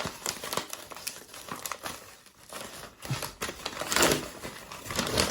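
Plastic parcel packaging crinkling and rustling as it is pulled and torn open by hand, in irregular bursts, loudest about four seconds in.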